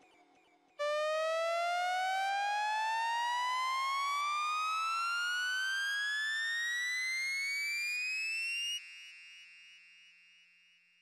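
Synthesized dub-siren tone from the SHR Tones plugin's "Rising Tone" preset: one buzzy tone that starts suddenly about a second in and glides steadily upward for about eight seconds. It then cuts off and leaves a fading echo tail.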